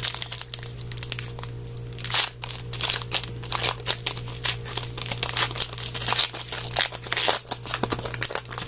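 Plastic trading-card pack wrapper crinkling and tearing as it is opened, in many irregular crackles.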